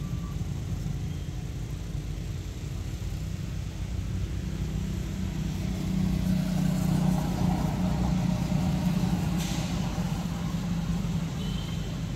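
Low engine rumble of a motor vehicle running nearby, growing louder from about four seconds in and easing off toward the end. A short hiss about nine and a half seconds in.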